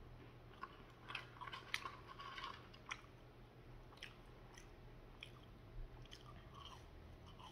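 Faint chewing of McDonald's french fries: soft mouth clicks and small crunches, thickest about one to three seconds in.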